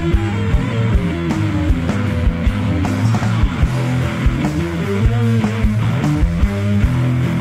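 Rock band playing from a demo tape: guitar riff over bass and drums, with a steady kick-drum beat.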